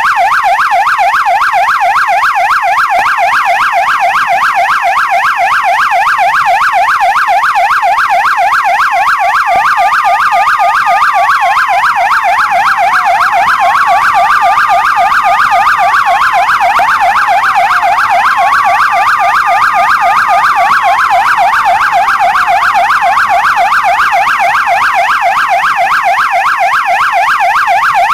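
Police siren in a fast yelp, warbling rapidly up and down without a break. About a third of the way in, a second siren in a slower wail joins it: three times it rises, holds, then slides down. It drops out a few seconds before the end.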